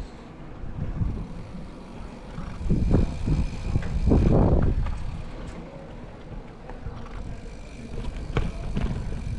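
Wind buffeting the microphone during a bicycle ride, with a steady low rumble. It swells into two louder rushes about three and four and a half seconds in.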